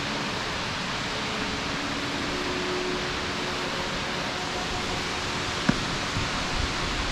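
Steady roar of a tall waterfall, Nachi Falls, its falling water making an even hiss-like rush, with a single short click about six seconds in.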